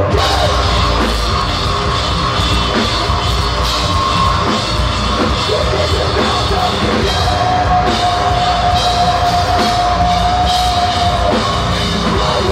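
Live rock band playing loud: drum kit, electric guitar and vocals, with one long held note from about seven to eleven seconds in.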